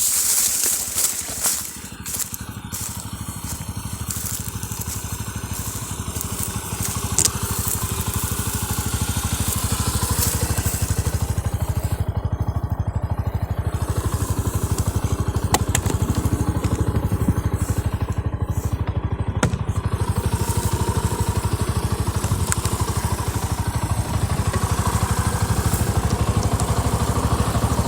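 Motorcycle engine running steadily, growing louder over the first several seconds and then holding. Crackling noise near the start.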